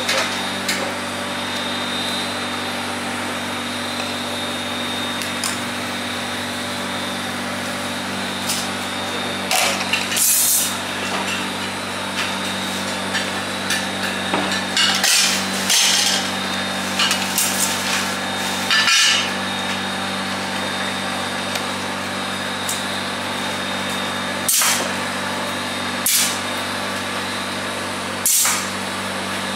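Flat steel kebab skewers clinking and knocking against a large aluminium pan every few seconds, over a steady mechanical hum.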